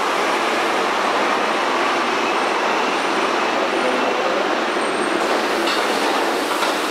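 BVG F-series three-phase U-Bahn train pulling out of an underground station and running off into the tunnel: a steady rumble of wheels on rail, with faint brief high squeals.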